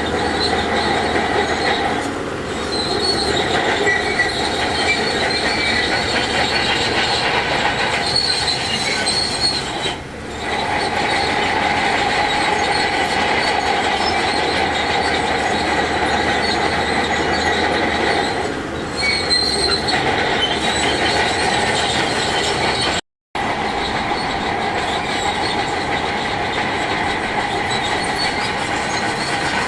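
Heavy earthmoving machinery working rock, its diesel running steadily under a continuous metallic squeal. The noise dips briefly a few times, and the sound cuts out for a split second about 23 seconds in.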